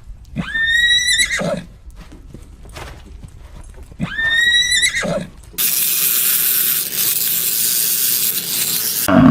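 A horse whinnying twice: each call is a high, steady, pitched cry about a second long that drops away at the end, the second coming about three seconds after the first. A steady hiss follows, and a loud low sound begins right at the end.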